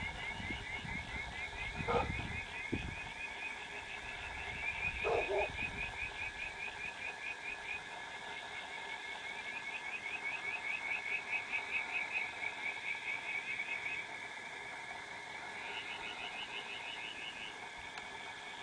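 Frogs calling in chorus: a fast, pulsing trill repeated steadily throughout, with two short lower calls in the first third. A low rumble sits under the first few seconds.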